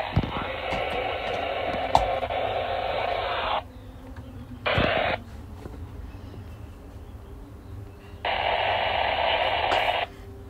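Baofeng GM-5RH handheld radio hissing static through its small speaker. The hiss cuts off abruptly about three and a half seconds in, returns as a half-second burst around five seconds, and comes back for about two seconds near the end.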